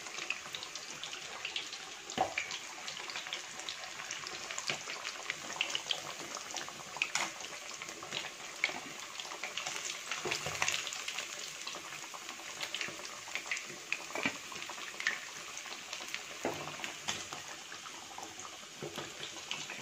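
Marinated fish pieces frying in hot oil: a steady sizzle with many small crackles and pops, and a few knocks of a slotted metal spatula.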